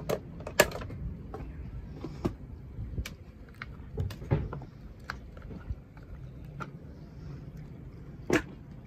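Protective sun covers being pulled off a boat's chartplotter and instrument displays: a string of separate clicks and light knocks, the sharpest about half a second in and near the end, over a low steady rumble.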